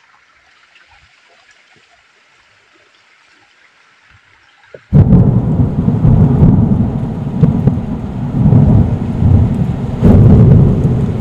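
Faint hiss for about five seconds, then a sudden loud thunderstorm: deep rolling thunder over a wash of rain, swelling again near the end.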